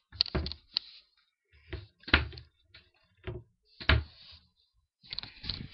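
A string of short, sharp knocks and clicks from things being handled close to the microphone, irregularly spaced over the first few seconds, with rustling near the end.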